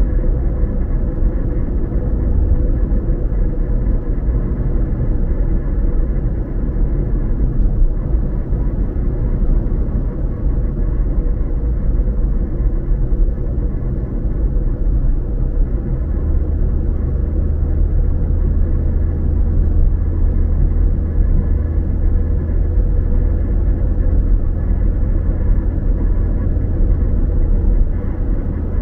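Steady low road rumble of a car driving, heard inside the cabin: tyre and engine noise with a faint steady hum. The deepest part of the rumble grows a little stronger about halfway through.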